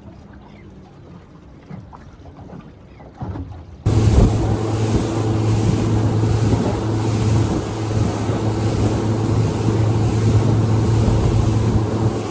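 A few faint clicks over a low hum, then about four seconds in an abrupt switch to a small boat's outboard motor running under way: a steady low drone with water rushing past the hull and wind buffeting the microphone.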